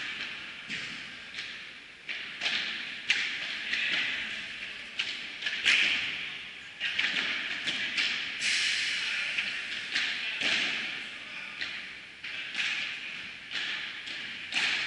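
Padel rally: the ball is struck back and forth with solid padel rackets and bounces off the court and glass walls. This gives a quick series of sharp pops, one or two a second, that echo in the large hall.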